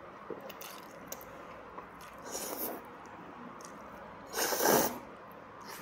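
Noodles being slurped: a short slurp about two seconds in and a louder, longer slurp about four and a half seconds in, with a few small clicks of chewing before them.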